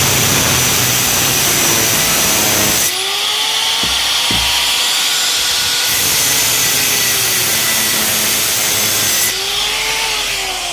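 An electric motor run in bursts: loud running for about three seconds, a few seconds where it winds down with a whine that bends in pitch, then a second burst of about three seconds that eases off again near the end.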